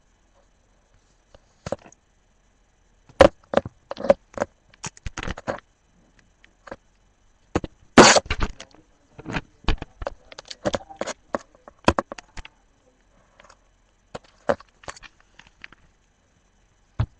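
Plastic pocket pages of a trading-card binder crackling and clicking as they are handled and turned, in irregular scattered bursts, the loudest rustle coming about eight seconds in as a page is flipped.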